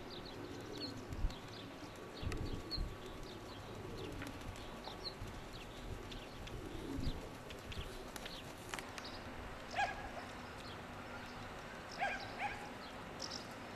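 Short, scattered bird chirps, with a few low bumps and one sharp click a little under nine seconds in.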